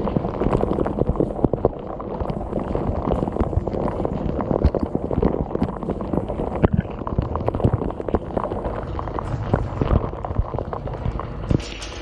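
Dishwasher wash cycle heard from inside the tub: spray-arm water pelting the camera and the dishes in a dense, irregular patter of hits, muffled, over a low steady hum from the circulation pump.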